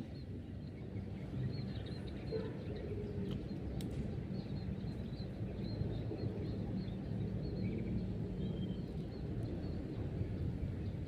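Outdoor pond-side ambience: a steady low rumble with faint, short, high chirps of small birds scattered throughout.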